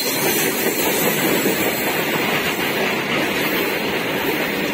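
A goods train's covered freight wagons rolling past at close range, their wheels on the rails making a steady, unbroken rumble.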